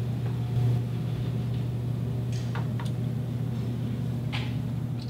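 Steady low hum of room noise in a small room, with a few faint soft clicks about two and a half seconds in and again near the end.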